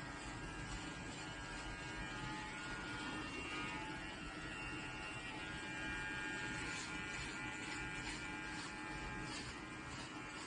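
Electric hair clippers buzzing steadily as they shave the hair from the back of a head.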